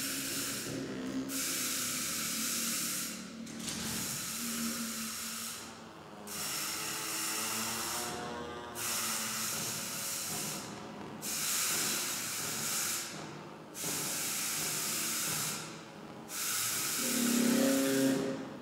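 Experimental improvisation of live electronics and percussion: a series of hissing noise swells, each about two seconds long and broken by short gaps, over low humming tones that grow louder near the end.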